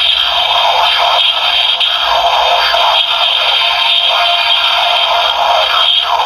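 Looping electronic music and sound effects from a toy transformation device's small built-in speaker, loud and thin, with no bass.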